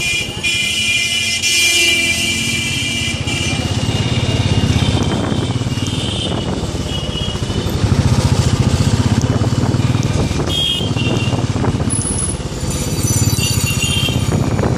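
Motorbike engine running while riding through busy street traffic, with short, high-pitched horn beeps several times, the longest near the start.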